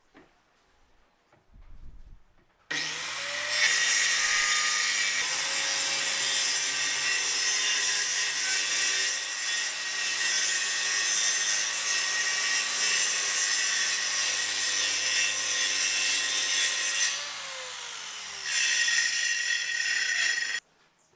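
Circular saw running and cutting through wood with a steady whine. It starts about three seconds in, eases off briefly near the end, bears down again, then stops suddenly.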